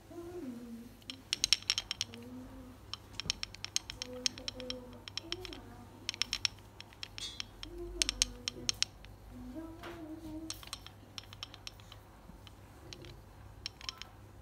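Wooden ball massager clattering in quick bursts of sharp clicks as it is jiggled and batted at by kittens, with faint short voice-like sounds between the bursts.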